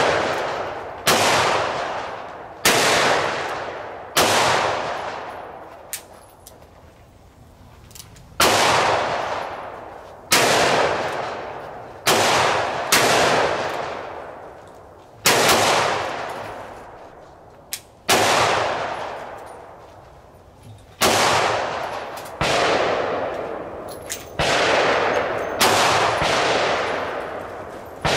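Gunshots fired one at a time at uneven intervals of one to three seconds, about fifteen in all. Each is a sharp crack followed by a long echo that fades over a second or two. A few fainter, shorter cracks fall in between.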